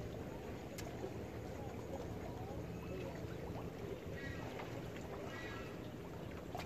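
Steady river ambience around a floating fish-farm cage: water moving against the raft under a low, even hum like a distant boat motor.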